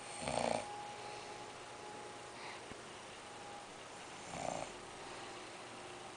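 A sleeping man snoring: two loud snores about four seconds apart, with a faint breath between them.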